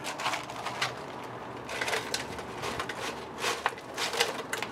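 Cardboard french-fry carton being handled and fries tipped into a plastic blender jar: a string of light rustles and soft taps, busier in the second half.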